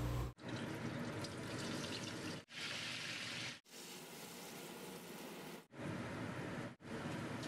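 Chili paste sizzling as it fries in a wok, stirred with a wooden spatula. The hiss comes in short pieces, each ending in a brief gap where clips are cut together.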